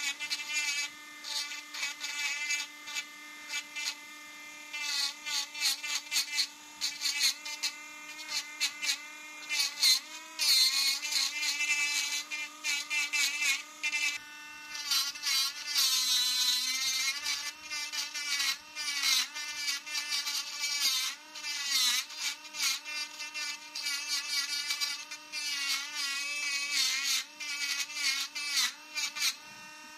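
Mini rotary engraving pen running with a steady whine, its fine bit grinding into a wooden knife handle in short, irregular scratchy bursts. The pitch sags briefly twice, around ten and sixteen seconds in, as the bit bears down under load.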